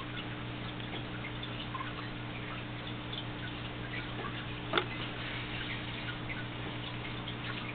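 Room tone: a steady low electrical hum and hiss, with faint scattered ticks and one sharp click a little under five seconds in.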